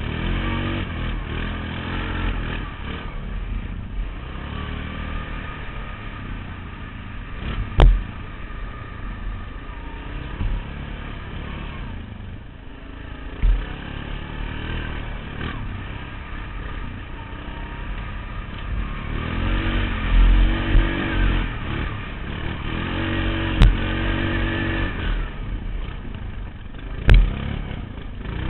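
ATV (quad) engine running while riding, its pitch rising and falling with the throttle and revving harder for a few seconds past the middle. A few sharp knocks cut through it, the loudest about eight seconds in.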